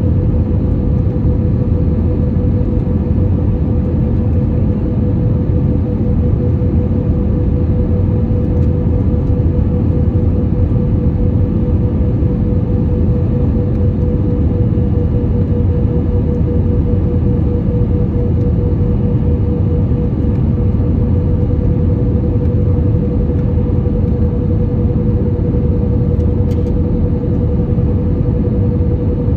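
Loud, steady cabin noise of an Airbus A320-family airliner on final approach, heard from a window seat over the wing: engine and airflow rumble with a steady hum held throughout.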